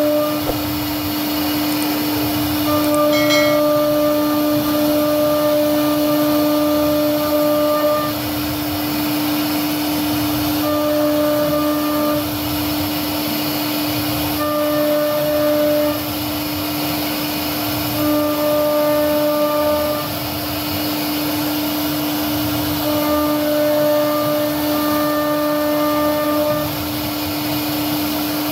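CNC router spindle running at high speed, its bit carving a floral relief into a wooden door panel: a steady whine over cutting noise, with a higher tone that comes and goes every few seconds.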